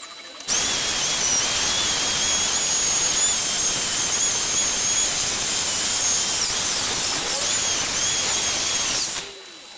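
High-speed handheld rotary tool with a small wire brush, cleaning the steel of a trailer ball coupler held in a vise. The motor starts about half a second in with a steady high whine over the scrubbing noise and cuts off near the end.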